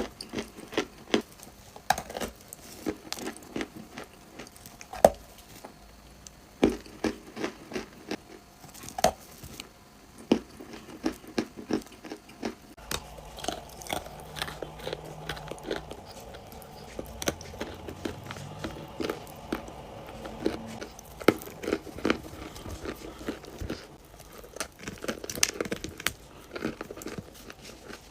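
Crunchy clay being bitten and chewed close to the microphone: sharp crunches at irregular intervals, with quieter chewing and crumbling between them.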